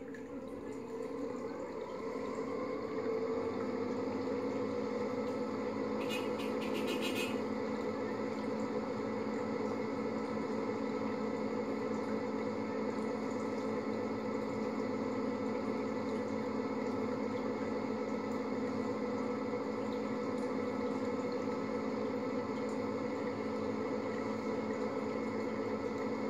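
Aquarium filter running: a steady buzzing hum mixed with churning water. It swells over the first couple of seconds, then holds level, with a brief rattling tick about six seconds in.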